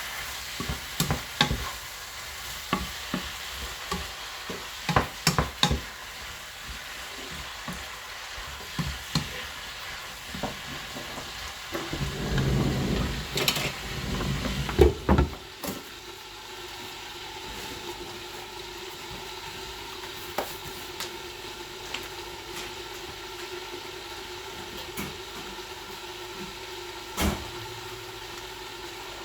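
Stir-frying food in a hot pan: a sizzle under frequent clacks and scrapes of a utensil against the pan. A louder, busier burst of stirring comes about halfway through. After that the food mostly sizzles with a steady hum underneath, and only an occasional knock.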